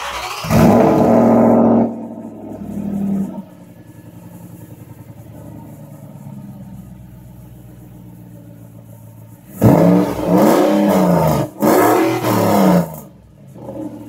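2008 Audi RS4's 4.2-litre V8 with a rear-mounted turbocharger firing up and running high for about two seconds, then settling to a steady idle through its exhaust. Near the end it is revved twice, the pitch climbing and falling each time, before it drops back to idle.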